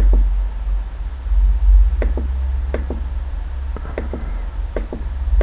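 Computer mouse and keyboard clicks, about six short sharp clicks at uneven intervals, Alt-clicking to toggle a switch in software. A steady low hum runs underneath.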